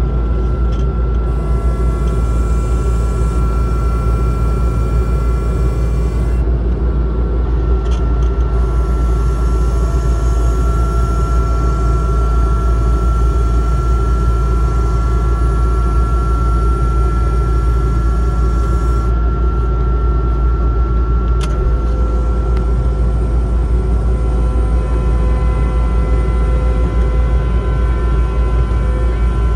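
Kubota skid steer's diesel engine running steadily under the cab, with a steady high whine over it, as the loader arms lift a pallet on the forks.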